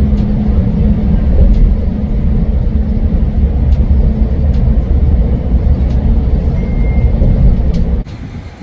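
Loud, steady low rumble of a moving road vehicle, cutting off sharply near the end.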